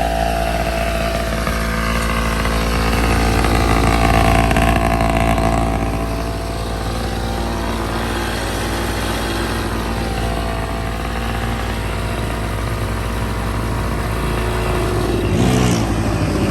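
X7 pocket bike's small two-stroke engine running, rising in pitch and loudness a few seconds in, then easing off.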